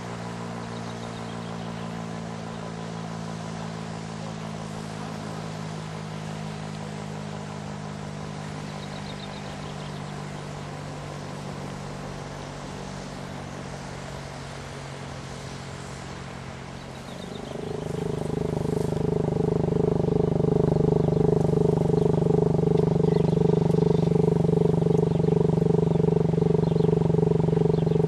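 WWII-era Elektror L1 electromechanical motor siren sounding the fire-alarm signal. A fainter steady siren tone comes first. About two thirds of the way in, it swells within a couple of seconds to a loud, steady high wail with a deeper tone beneath it.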